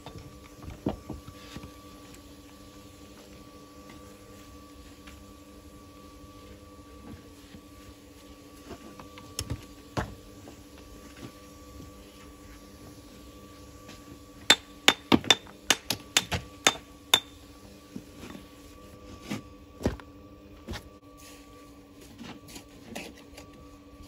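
Sharp knocks of a mason's metal tool striking stone as a stone wall is built: a few scattered strikes, then a quick run of about eight midway through, with a faint steady hum underneath.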